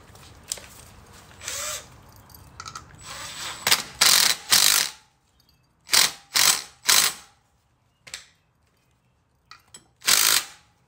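Cordless impact driver running in repeated short bursts as it drives the bolts securing the rear sprocket to a dirt bike's wheel hub. The longest run comes about four seconds in, followed by three quick bursts and a final one near the end.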